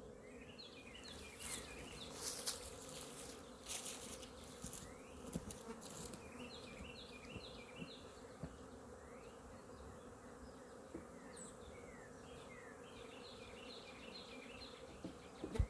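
Honeybees buzzing steadily at an open hive, a faint low hum. Runs of short high bird chirps come in twice, about six and thirteen seconds in, and a few soft clicks sound in the first few seconds.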